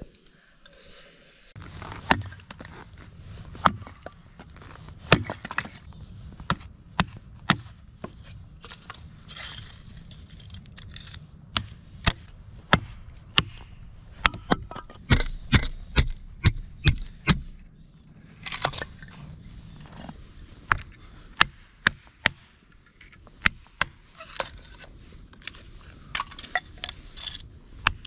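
A hatchet splitting dry boards into kindling on a wooden chopping block: a long run of sharp chops and cracks of wood splitting, one or two a second, coming quicker in the middle.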